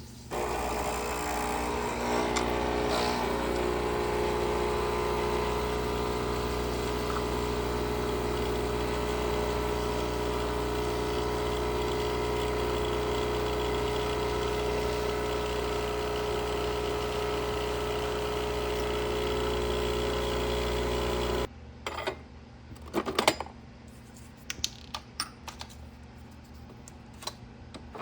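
A small electric motor appliance running steadily with a constant hum, cutting off suddenly about 21 seconds in, followed by a few light clicks and knocks.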